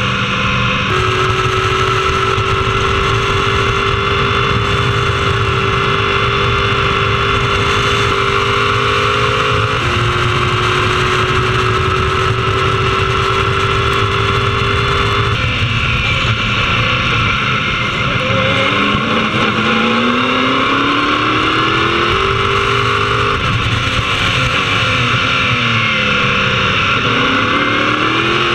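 Onboard sound of an open-cockpit prototype race car's engine at full throttle, its pitch dropping abruptly at upshifts about a second in and again about ten seconds in. From about sixteen seconds the pitch falls in steps under braking and downshifts, then climbs again through the gears as the car accelerates, with another run of downshifts and a rise near the end.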